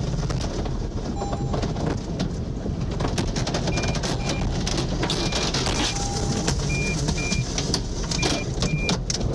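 Tsunami floodwater rushing around a car as it is swept along, heard from inside the car, with constant clattering and knocking of debris against the body. Short, high electronic beeps repeat, often in pairs, through the second half.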